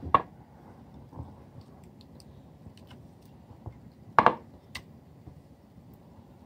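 Faint kitchen handling sounds as crushed garlic paste is scraped off a plate onto raw chicken wings in a bowl: a light click at the start, a short knock about four seconds in, and another click just after it.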